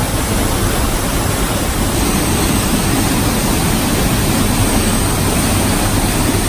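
Underground waterfall in a cave pouring into a rock pool: a loud, steady rush of falling water.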